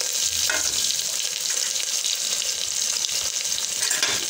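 Whole cumin seeds, dried red chillies, garlic and onion sizzling steadily in hot oil in an aluminium pot: the tempering (tadka) for dal, just after the spices hit the oil.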